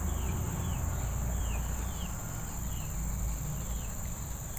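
Steady high-pitched chorus of insects, with a short falling chirp repeated roughly every half second over a low rumble.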